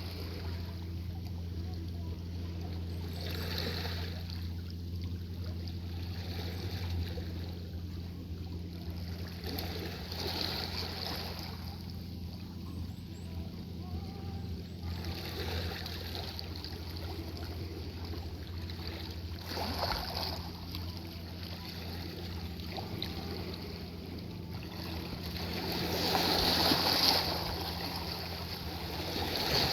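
Sea waves washing onto a beach, swelling and falling back every few seconds, with the largest surge near the end. A steady low hum runs underneath.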